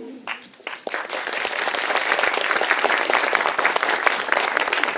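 Audience applauding: a few first claps, then dense applause that swells about a second in and holds steady.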